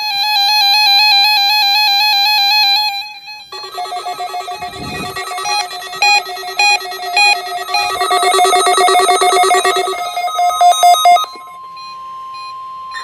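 Several NOAA weather radio receivers sounding their alerts for the weekly test: first a warbling siren-like alarm, then overlapping electronic beeping at several pitches. Near the end the beeping stops and the National Weather Service's steady 1050 Hz warning alarm tone is left.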